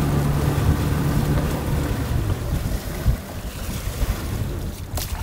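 Boat's outboard motor running with a steady low hum, fading about halfway through, under wind noise on the microphone.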